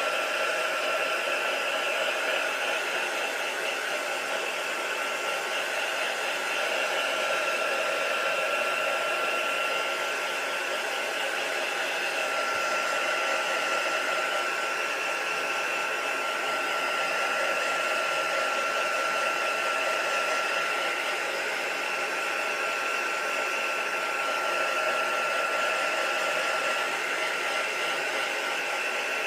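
Handheld electric hot-air dryer blowing steadily, with a steady whine over the rush of air, drying wet acrylic paint.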